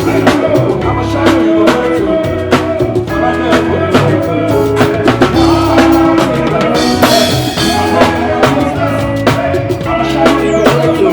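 Loud party music with a steady drum-kit beat, a deep bass line and held keyboard notes, playing without vocals.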